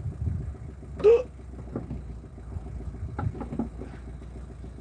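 A few light knocks and a short voice sound about a second in, over a low steady hum.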